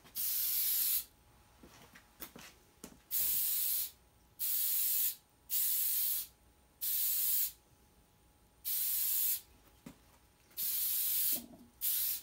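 Aerosol spray can spraying shellac in eight short hissing bursts, each under a second, with pauses between them: a light finish coat being sprayed on.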